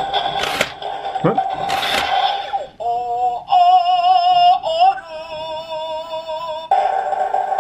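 Electronic sound chip of a DX Whale Change Gun toy playing through its small speaker: a synthesized music jingle with two whooshes, then a sung synthetic voice phrase with wavering pitch from about three seconds in, after which the music resumes. It is part of the toy's long mecha-summoning sequence for the ultimate combo.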